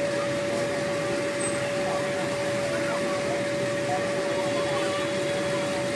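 A steady machine hum holding one constant tone over an even background noise, with faint distant voices.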